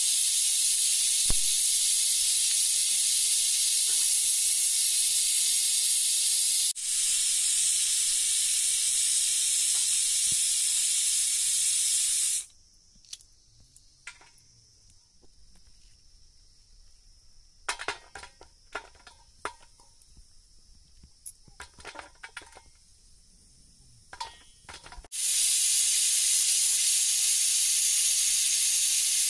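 Loud, steady, high-pitched hiss that breaks off abruptly about a third of the way in and returns just as suddenly near the end; in the quieter stretch between, a scatter of light clicks and knocks.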